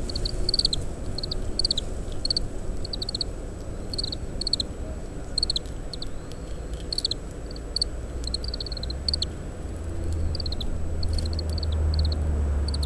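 Oriental greenfinch giving its short, high call notes (ji-naki) in a quick string, about three a second, some in pairs. A low wind rumble on the microphone underlies them and grows louder in the last few seconds.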